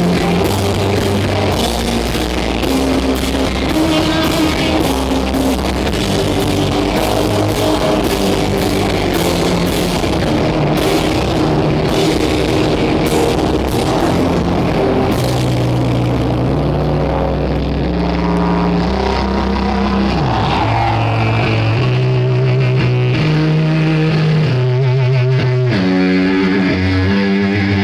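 Live heavy rock band playing loudly: bass guitar, electric guitar and a drum kit with cymbals. About halfway through the drums and cymbals drop out, leaving the electric guitar and bass playing a riff on their own.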